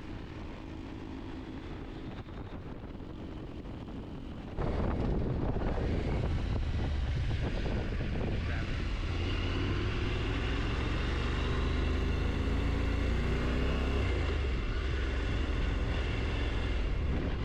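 Motorcycle riding noise: the engine runs under a steady rush of wind and road noise. About four and a half seconds in it becomes louder and deeper, and the engine's pitch rises and falls as the bike speeds up and eases off.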